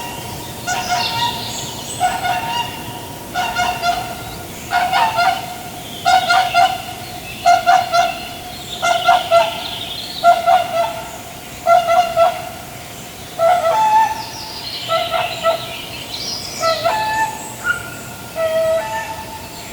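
Waterfowl honking, a long run of short, repeated calls at about one a second.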